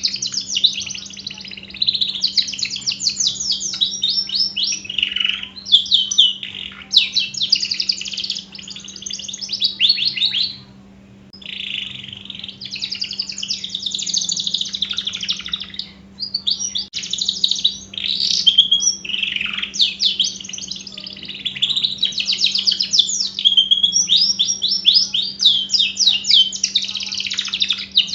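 Domestic canary singing long, rapid rolling trills and warbled phrases, with short breaks between song bouts.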